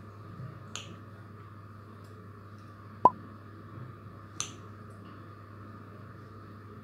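Kitchen scissors cutting slits into bread dough wrapped around a sausage: two soft shearing snips and one sharp click about three seconds in, over a faint steady hum.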